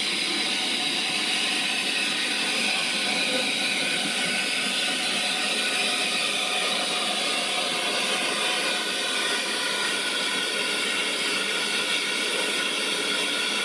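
Steady hiss of steam from a WD Austerity 2-10-0 steam locomotive as it draws slowly alongside the platform.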